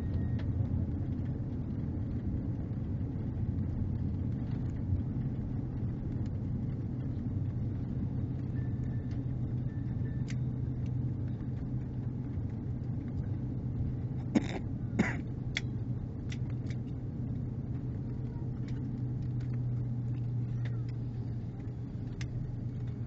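Steady low rumble of an Airbus A330-200 heard inside the cabin as it taxis after landing, its engines running at low power. Two sharp knocks about halfway through, half a second apart.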